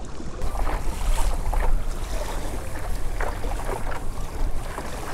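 Small waves lapping and slapping against the hull of a pedal kayak, with irregular little splashes. Wind buffets the microphone with a steady low rumble.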